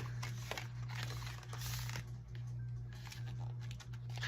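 An album's paper and plastic packaging being handled: rustling and crinkling, with a few sharper scrapes, over a steady low hum.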